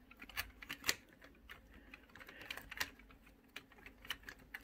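Faint, irregular light clicks and taps of a 3D-printed plastic cover plate knocking against metal key shafts as it is worked down over them.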